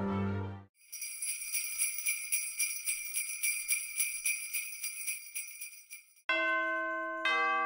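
Jingle bells shaken in a quick, steady rhythm for about five seconds, then fading out. Near the end, ringing bell-like music notes begin, a new note about once a second.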